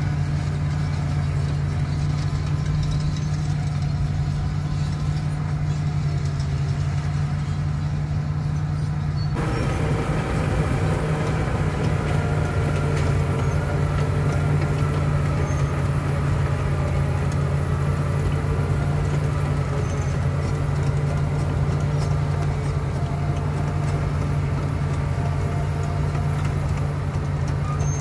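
Caterpillar crawler bulldozer's diesel engine running, a steady low drone. About nine seconds in, the engine picks up and a fuller mechanical clatter joins it as the dozer comes forward.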